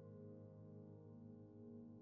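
Soft ambient background music of long sustained tones.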